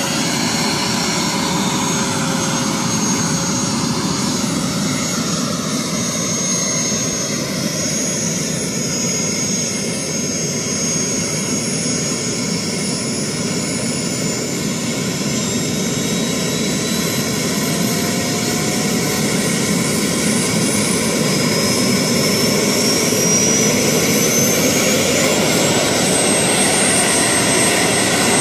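Large radio-controlled model helicopter starting up on the ground: a steady mechanical whine with a high whistle that rises steadily in pitch and grows a little louder over the second half as the engine spools up.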